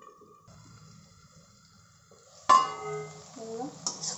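Steel lid on a kadai of vegetables: a faint steady sound while it is covered and steaming, then about two and a half seconds in one sharp metallic clang with ringing as the lid is handled. A few steel spatula clinks on the pan follow near the end.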